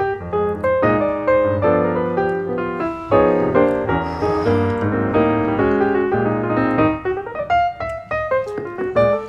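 Background piano music: a steady flow of quick notes and chords.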